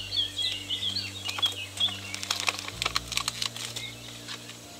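Small birds chirping in quick, short notes, thickest in the first two seconds, over a scatter of light, irregular clicks.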